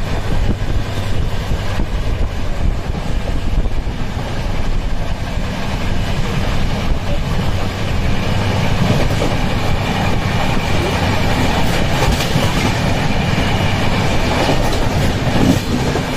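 Passenger express train running at speed, heard from on board at an open window: a steady running noise of the wheels on the rails.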